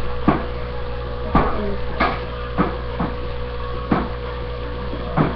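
About seven short, irregular knocks or taps, spread unevenly, over a steady electrical hum.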